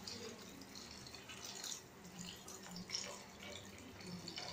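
Water poured from a steel mug into an aluminium kadai of fried vegetables, splashing faintly in uneven gushes.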